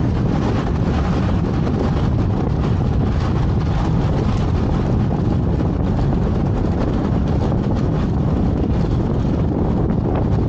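Steady wind rushing over an action camera's microphone on a moving bicycle, a dense low rumble with no breaks.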